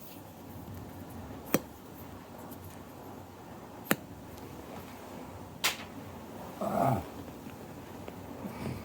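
A person snoring in a doze: one short snore about seven seconds in that falls in pitch, after three sharp clicks.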